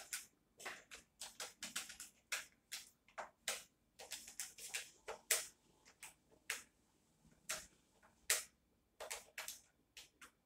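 Faint, irregular light clicks and ticks, a few a second, in a small quiet room.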